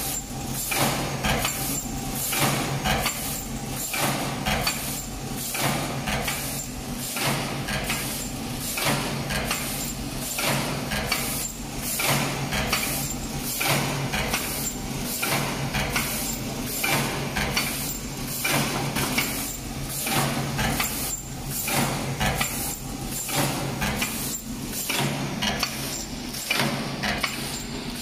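Fully automatic lunch box forming machine running: a steady hum under a regular cycle of short air hisses and clacks, with a louder stroke about every second and a half.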